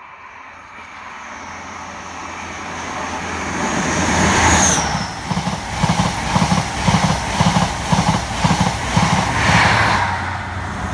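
InterCity 125 high-speed train running through at speed, its power car with a Paxman VP185 engine giving a high whine that drops sharply in pitch as it passes. The coaches follow with a rhythmic wheel clatter about twice a second, which fades as the train goes.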